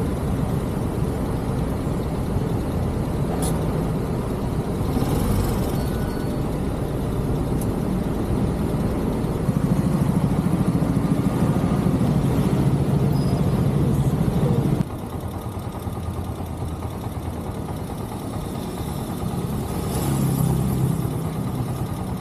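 Motorcycle engine running with road and traffic noise while riding in city traffic. The sound grows louder partway through, then drops suddenly about two-thirds of the way in.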